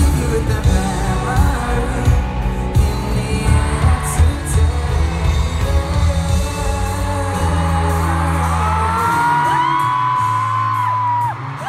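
Live pop-rock band playing through an arena sound system, with a kick drum beat, bass and a sung vocal, heard from the stands. Near the end a high voice holds a long note that rises and then falls away.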